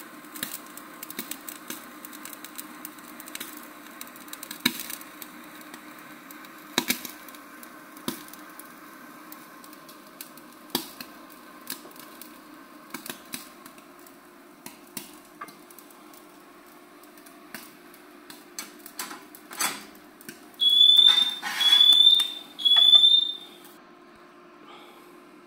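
Klarstein Steakreaktor infrared grill running near 800 °C: a steady hum with scattered crackles and pops from the meat searing under the burner. Near the end come three loud electronic beeps, about a second apart.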